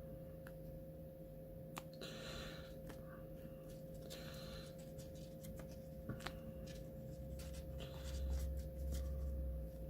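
Quiet scraping and light clicks of hands handling a plastic candy kit tray and its packaging, in a few short swishes, over a faint steady hum.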